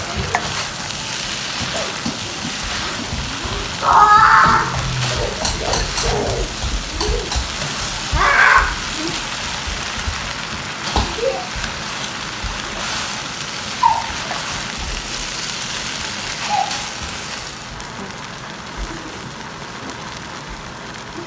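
A steady hiss, like rain or water, under soft background music, with a few short voice sounds; the hiss fades away near the end.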